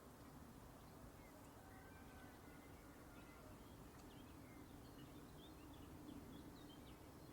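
Faint small-bird chirps, many short high calls scattered throughout and busier in the second half, over a low steady hum.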